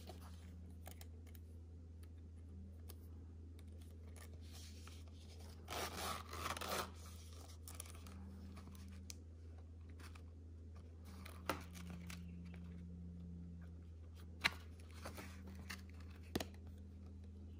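Quiet handling of a small quilted-leather zip card holder: a short rasping sound about six seconds in and a few light clicks later, over a steady low hum.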